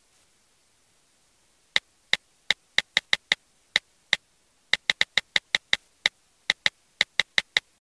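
Typing sound effect: about two dozen sharp single key clicks in uneven runs, starting a little under two seconds in, with faint hiss between them.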